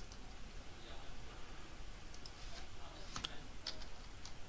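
A handful of faint, separate computer mouse clicks, most of them in the second half.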